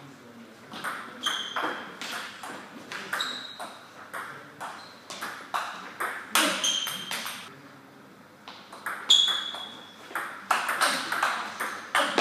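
Table tennis ball clicking off rackets and the table in fast rallies, many hits leaving a short high ring. The hits come in quick runs, with a lull of about a second past the middle.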